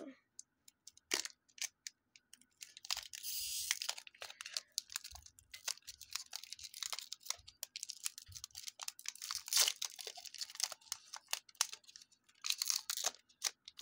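Foil wrapper of a Pokémon trading card booster pack being torn open by hand: a run of sharp crinkles and crackles, with a longer tear about three seconds in and another burst of crinkling near the end as the cards are slid out.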